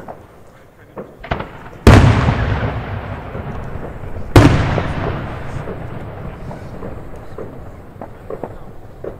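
Funke Corolla Blue 100-shot 1.2-inch fireworks cake firing: a few soft pops, then two loud shell bursts about two and a half seconds apart, each trailing off in a long echoing rumble. Faint crackles follow near the end.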